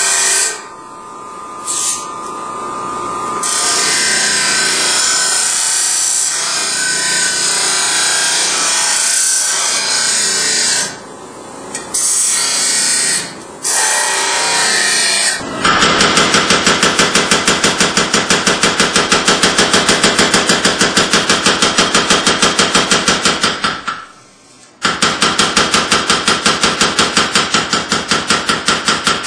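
Abrasive grinding wheel shaping a steel knife blank, a steady grinding hiss that cuts out briefly a few times. About halfway through it gives way to a power hammer forging the hot blade: rapid, evenly spaced blows that stop for a moment near the end and then carry on.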